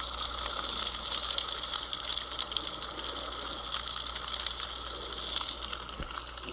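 Fire crackling: a steady hiss dotted with dense, irregular small snaps from burning brush.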